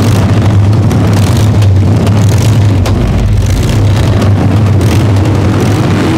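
Vintage racing car engine running loud at steady revs, with dense mechanical and road noise and no change in pitch.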